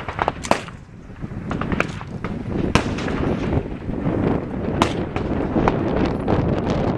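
Scattered gunshots from a firing line, single sharp reports at irregular intervals, over a steady rushing of wind on the microphone.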